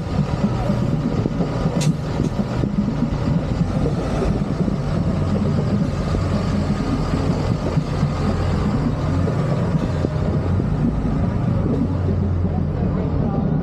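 Engine of a trolley-style replica bus running with a steady low rumble as it drives slowly past at close range. There is a single sharp click about two seconds in.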